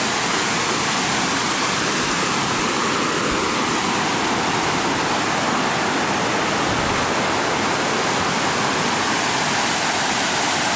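Steady rushing of flood water, an even, unbroken noise.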